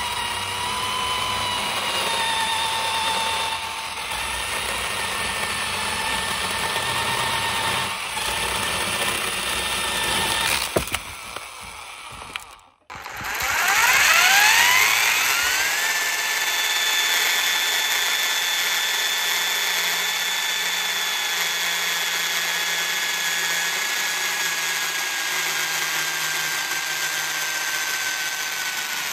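Electric drill driving a mini chain saw attachment, running steadily with a motor whine. About thirteen seconds in it cuts out for a moment, then spins back up with a rising whine and runs on steadily, its pitch sinking slowly.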